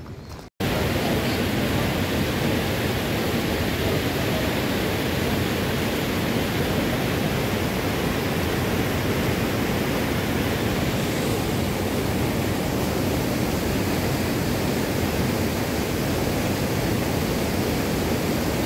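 Waterfall and swollen stream rushing in a rocky gorge, a steady full wash of water noise that starts abruptly about half a second in; the stream is running high in flood after heavy rain.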